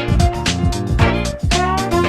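Upbeat funky background music with a steady drum beat and a moving bass line.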